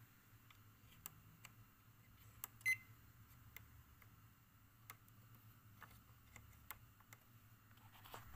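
Near silence: a faint low hum with scattered small ticks, and one short, louder beep-like click about two and a half seconds in.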